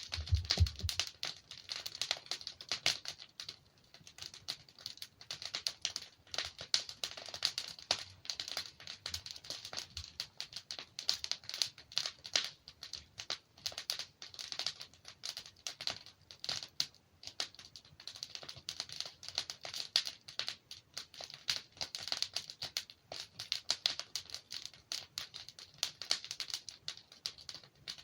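Wood fire crackling steadily: dense, irregular small pops and snaps of burning logs, with a brief low thump right at the start.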